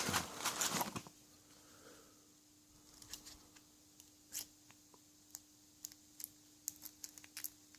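Lock pick and tension wrench working the pins of a 4-pin padlock: sparse faint metallic clicks and ticks as the pins are picked, after a brief louder burst of handling noise at the start.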